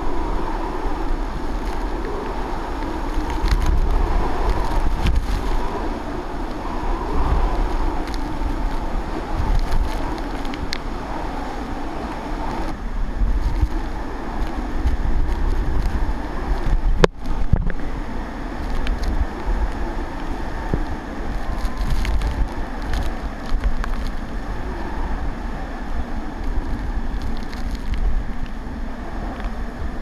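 Typhoon eyewall wind gusting in waves with driving rain, and heavy wind buffeting on the microphone. A single sharp click about seventeen seconds in.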